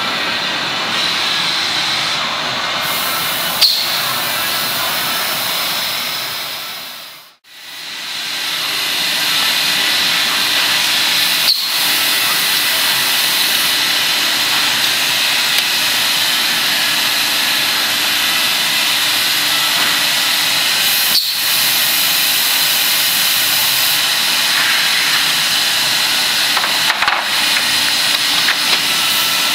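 Steady loud hiss and high whine of running woodworking machinery, with three light knocks. The sound drops out for a moment about seven seconds in.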